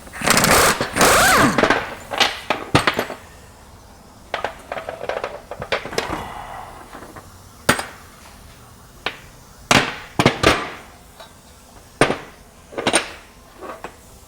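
Metal tool noise on a front wheel hub bearing just pressed into its steering knuckle: a loud grinding, rattling burst lasting a second or two, then a string of separate sharp metal knocks, like hammer taps.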